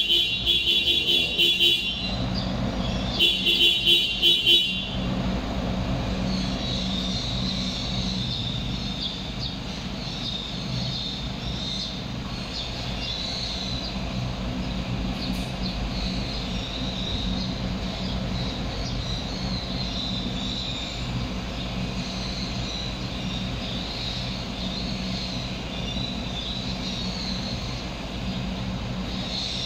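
Two bursts of a rapidly pulsing vehicle horn, each a second or two long, in the first five seconds, then a steady low hum of street traffic.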